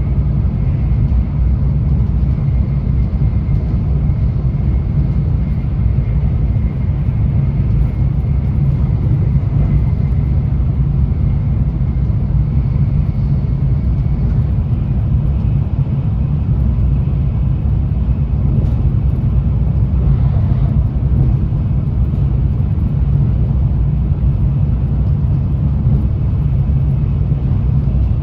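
Tokaido Shinkansen N700A train running at speed, heard from inside the passenger car: a steady, loud, deep rumble of wheels on rail with a faint steady high tone above it.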